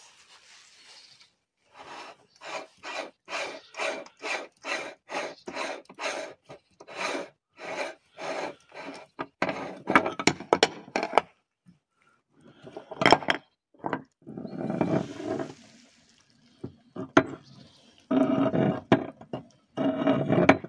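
Hand-cranked meat grinder turning and crushing tomatoes, a rhythmic grating stroke a little more than twice a second. This gives way to metal clicks and a sharp knock as the front ring and perforated plate are unscrewed and taken off.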